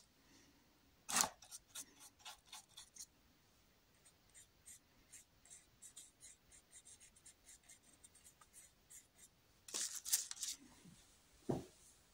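Paintbrush working acrylic paint onto a canvas in many short strokes and dabs. A louder group comes about a second in, a run of faint quick dabs follows in the middle, and another louder group comes near the end.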